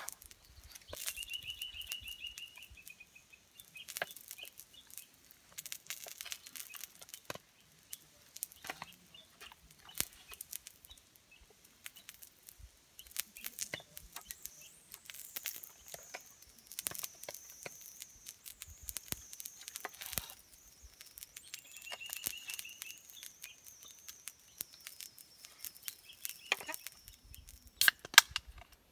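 Irregular crackling and popping from the wood-fire grill, with a louder cluster of pops near the end. A bird trills twice in the background, and a thin high whistle slowly falls in pitch through the middle.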